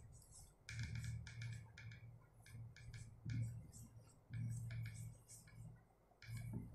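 Faint writing sounds: a run of short, irregular scratching strokes as words are written out by hand.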